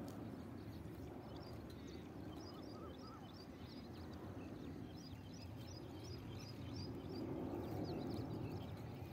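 Birds chirping in many quick, short notes over a steady low rumble that grows louder about seven seconds in.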